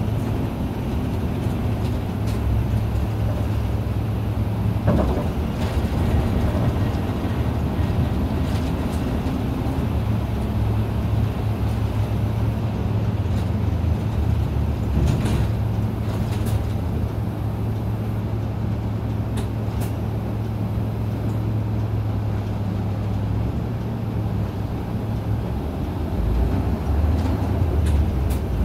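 Isuzu KL-LV280N1 city bus heard from inside the cabin while it is driving: the diesel engine drones steadily, with a few short clicks and rattles from the interior. About three-quarters of the way through, the engine tone drops away, and a louder low rumble follows near the end.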